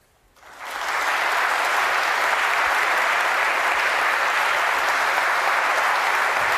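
Audience applauding, swelling from silence about half a second in to a steady, full clapping within a second.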